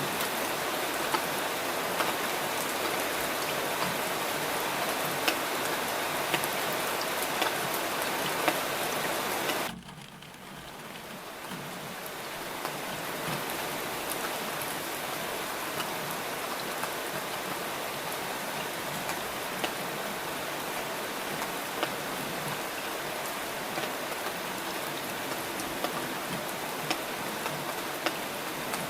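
Steady rain, a dense hiss of falling drops with sharper single drops ticking through it. About ten seconds in it drops away suddenly and swells back over a couple of seconds, a little quieter than before.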